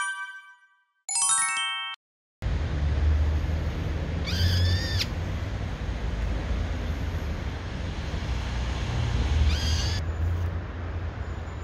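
A short chiming jingle, then a steady low rumble with two shrill calls of a brown-eared bulbul, about four and nine and a half seconds in.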